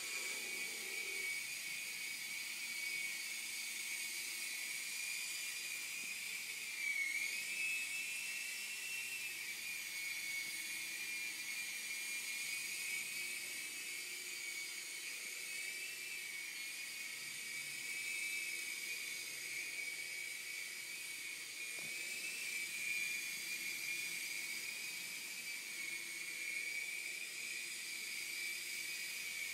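Indoor mini RC helicopter's tiny electric rotor motors whining steadily at a high pitch. The pitch wavers slightly as it flies and dips briefly about seven seconds in.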